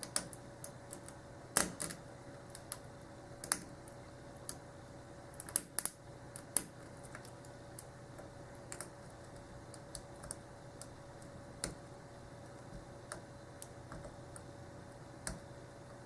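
Hook pick and tension wrench working the pins of a Schlage 851226 padlock: irregular small clicks and crunches as the pick catches on serrated pins, frequent for the first several seconds, then sparser.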